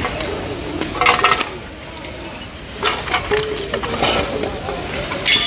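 Ceramic saucers and plates clinking and knocking against each other as they are picked through, in several short bursts of clatter.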